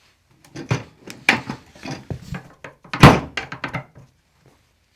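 A run of dull thunks and knocks during a chiropractic adjustment, irregular, the loudest about three seconds in.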